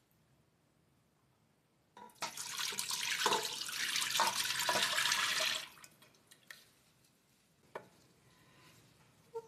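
Melted lamb fat (tallow) poured from a small steel pot into a large stainless steel pot, splashing steadily for about three and a half seconds before stopping. After it stops there are a couple of light knocks.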